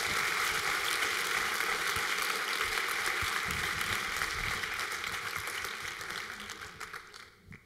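Audience applauding: dense, steady clapping that tails off near the end.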